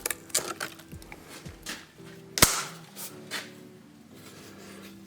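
Hand tool tapping and prying at an old gasket on a Ford flathead V8, metal clicks and knocks with one sharp metal strike about two and a half seconds in.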